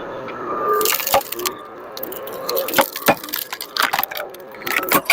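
Firewood log cracking and splintering as it is split apart in a log splitter, with several sharp cracks.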